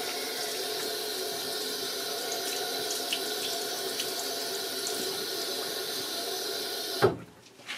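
Tap water running steadily into a bathroom sink, shut off abruptly about seven seconds in.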